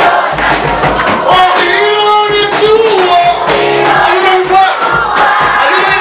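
Praise-and-worship music: voices singing a held, gliding melody together over instruments with a steady low beat.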